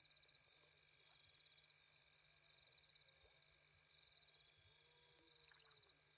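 Faint chorus of night insects: a high-pitched trill that pulses about twice a second. A faint, low, arching call sounds briefly about five seconds in.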